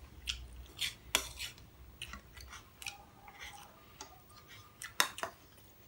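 Metal spoons clinking and scraping against ceramic bowls during a meal: a scattering of sharp clinks, the loudest about five seconds in.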